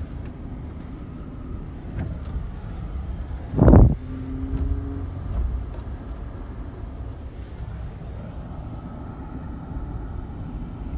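Car driving: a steady low rumble of engine and road noise, with one short, loud burst of noise a little under four seconds in and a brief steady hum just after it.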